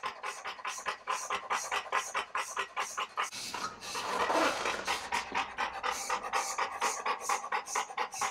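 A young Dogue de Bordeaux (French Mastiff) panting fast and steadily, about five breaths a second. A louder, longer noise comes about four seconds in.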